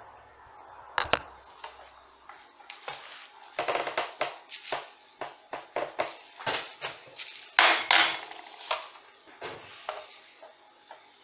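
Irregular clicks, taps and clatter of small hard objects being handled, with a sharp knock about a second in and the loudest cluster of clicks about eight seconds in.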